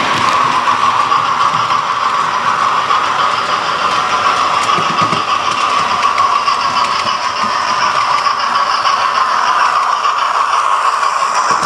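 OO gauge model train running on the track: a steady whirr of the locomotive's motor with the rattle of its wheels on the rails.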